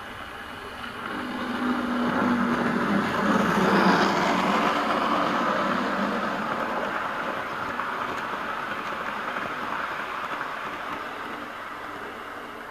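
OO gauge model train running past on the garden railway's track, its wheels on the rails and a low hum. It grows louder from about a second in, is loudest at about four seconds, then slowly fades as it passes.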